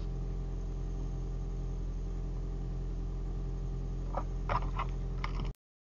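Steady low hum inside a car's cabin, picked up by a dashcam's microphone, with a few faint short clicks about four seconds in; it cuts off suddenly near the end.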